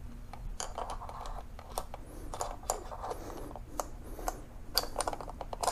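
Irregular small metallic clicks, taps and scrapes as the recoil spring and guide rod are fitted into the slide of a Ruger SR1911 10mm pistol.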